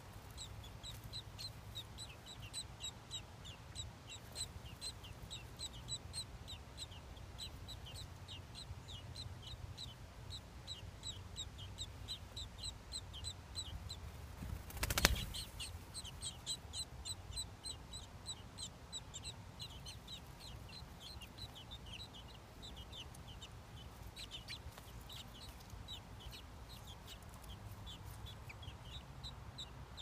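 American robin nestlings begging: a run of short, high-pitched peeps, about three a second. A single sharp knock about halfway through is the loudest sound.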